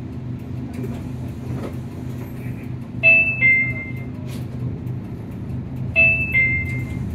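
Nissan Diesel KC-UA460NSN bus's diesel engine running steadily, heard from inside the passenger cabin. Twice, about three seconds apart, a two-note electronic chime sounds, a high note falling to a lower one.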